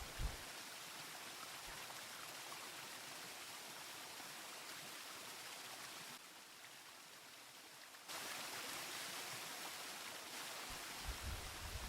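Mountain river water rushing steadily. It drops quieter for about two seconds partway through, then comes back louder. Brief low thumps sound near the start and just before the end.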